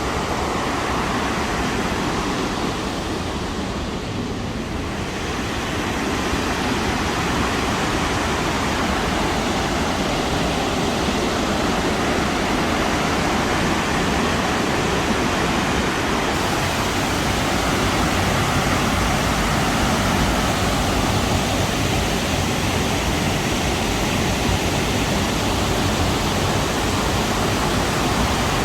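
Steady rushing of Burney Falls, a large waterfall pouring into its pool, a dense even noise that grows a little louder after about six seconds.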